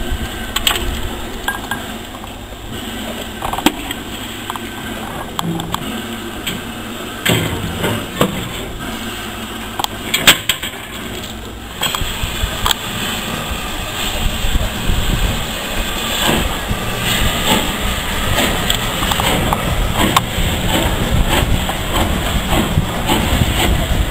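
LNER B12 4-6-0 steam locomotive No. 8572 moving off: scattered metallic knocks and clanks, then from about halfway a louder, steady sound of the engine working and rolling away over the rails.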